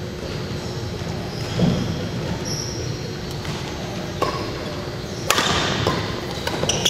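Badminton rally in a large gym: sharp racket strikes on the shuttlecock, three of them in the second half, a little over a second apart. A dull thud of a step on the wooden court about one and a half seconds in, and short high squeaks of shoes on the floor.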